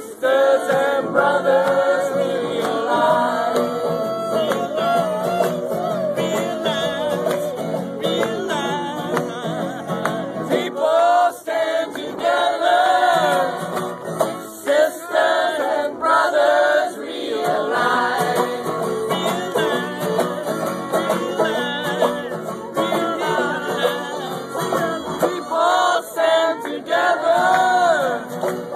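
A crowd singing a song together in unison, led by a man's voice, to strummed acoustic guitar and banjo.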